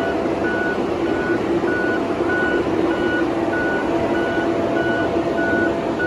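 John Deere grapple skidder's back-up alarm beeping about twice a second over the steady running of its diesel engine, as the machine moves in reverse with logs in its grapple.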